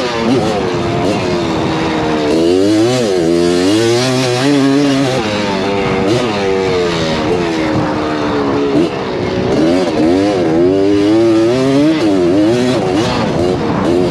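Honda ATC250R's two-stroke single-cylinder engine being ridden hard, its pitch rising and falling over and over as the throttle is opened and closed, with a burping exhaust note.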